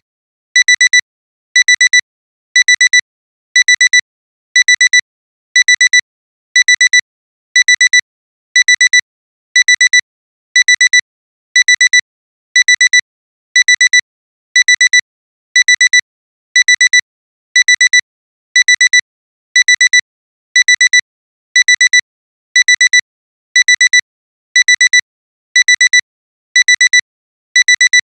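Alarm clock alarm going off: high-pitched electronic beeps in pairs, beep-beep, repeating about once a second, signalling that the timer has run out.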